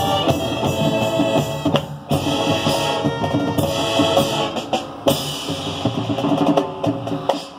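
Marching band playing: held wind chords over drums and percussion, with a short break about two seconds in before the full band comes back in.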